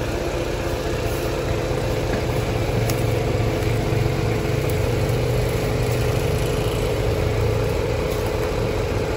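Heavy truck's diesel engine idling steadily with a fast, even pulse, growing a little louder over the first few seconds.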